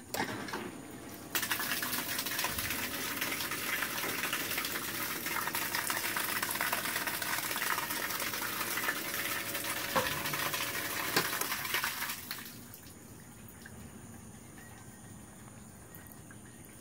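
Kayak bilge pump running after its float switch is lifted, pushing a steady gush of water out through the hull discharge. The gush starts about a second in and stops after about eleven seconds.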